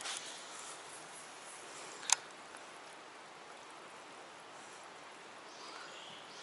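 Faint steady outdoor background hiss, with one sharp click about two seconds in.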